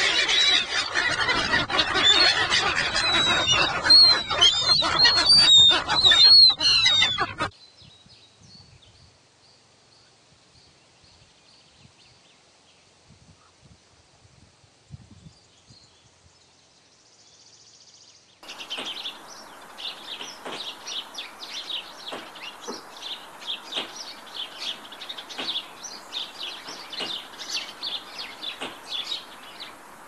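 Gulls calling, a run of high squawks that arc up and down, for the first seven seconds or so. After a quiet stretch, rapid high chirping from a small songbird starts about two-thirds of the way in and keeps going.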